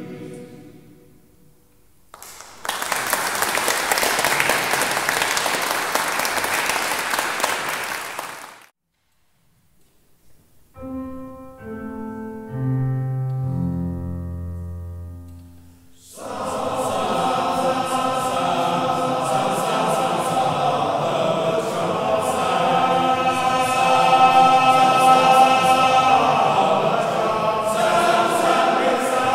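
A male voice choir's last chord dies away in a long church reverberation, then the audience applauds for about six seconds. After a brief silence a piano plays a short introduction of separate notes, and the full male choir comes in singing about halfway through.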